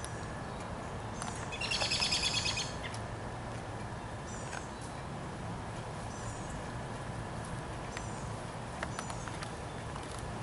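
Birds chirping: short high chirps repeat every second or two, and a rapid burst of chattering notes about two seconds in is the loudest sound. Steady outdoor background noise runs underneath.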